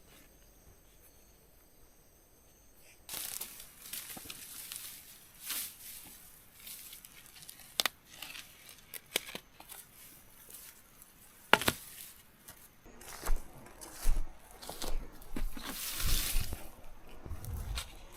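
Crinkling and rustling of material being handled close by, starting about three seconds in, with a few sharp clicks and knocks along the way.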